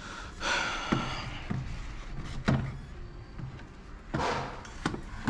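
Parts and tools being handled during a car repair: several sharp knocks and clunks, and two brief scraping rustles, one about half a second in and one about four seconds in.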